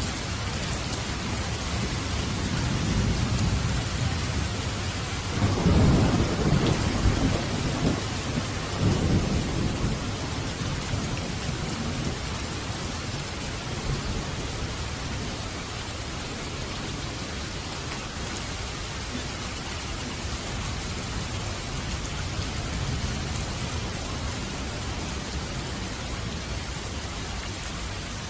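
Steady rain falling, with a roll of thunder rumbling in a few seconds in, loudest around six seconds with a second swell around nine, then dying away to rain alone.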